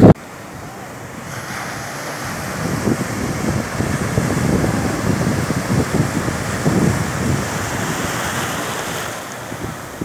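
Sea surf breaking and washing up the beach, with wind buffeting the microphone. The rush of water builds over the first few seconds, is fullest in the middle, and eases off near the end.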